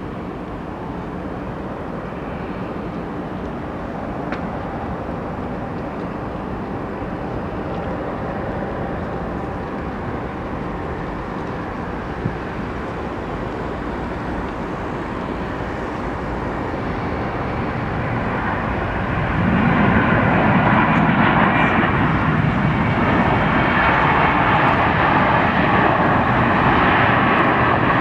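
McDonnell Douglas MD-11 three-engine jet landing, its engines a steady rumble on the approach and touchdown. About two-thirds of the way through the sound jumps suddenly louder and rougher and stays there, as reverse thrust is applied on the rollout.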